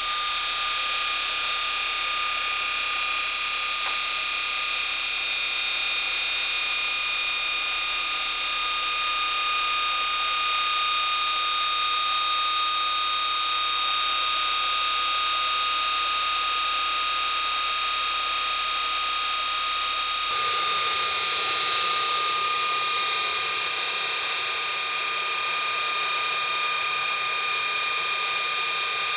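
Early General Electric 9-inch DC electric motor built for the Bradley GTE kit car, free-running with no load on 12 volts: a steady high whine with the hum of its brushes and bearings. It grows a little louder and hissier about two-thirds of the way through.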